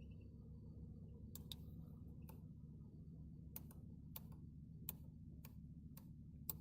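A dozen or so sharp, irregularly spaced clicks, some in quick pairs, over a steady low hum: plastic switch or button clicks from car cabin controls.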